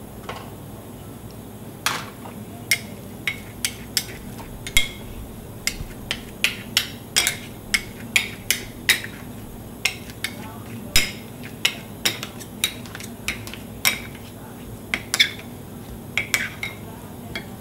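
Metal spatulas striking a cold stone plate as ice cream is chopped and mixed on it: about thirty sharp, ringing clinks at an uneven pace, roughly two a second, starting about two seconds in.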